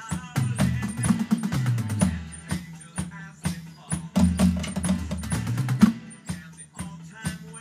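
Electronic drum kit played in a busy, improvised drum part: rapid strikes with fills rolling around the toms and stepping down in pitch, over a steady high cymbal tick.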